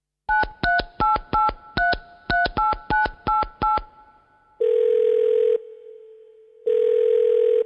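Touch-tone telephone dialing: eleven quick two-pitch keypad beeps, then the ringing tone on the line, sounding twice for about a second each.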